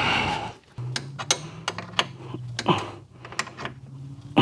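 Irregular sharp clicks and light metallic ticks of a spanner working the screws that hold a tractor bonnet in place, over a steady low hum. A short vocal sound near the end.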